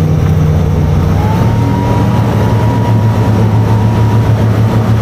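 Twin Suzuki outboard engines running steadily under load, driving in reverse to try to back a catamaran off the mud it is stranded on. A thin high whine rises about a second in and then holds steady.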